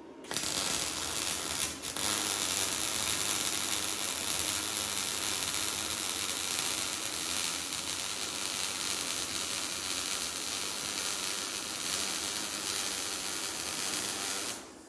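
YesWelder MIG-205DS MIG welder running a bead on steel with .035 wire: the arc starts about a third of a second in, breaks off briefly near two seconds, then runs steadily and loudly until it stops just before the end.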